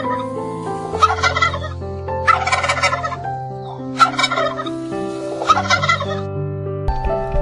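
An animal calling in repeated rattling bursts, about one every one and a half seconds, over background music with held notes.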